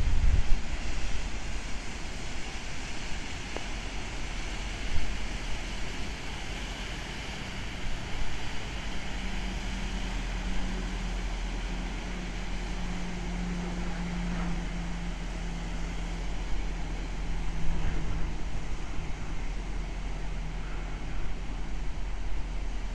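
Azimut motor yacht's engines running as it cruises past, a low steady hum that grows louder near the middle and then fades, over the wash of its wake. Wind buffets the microphone briefly at the start.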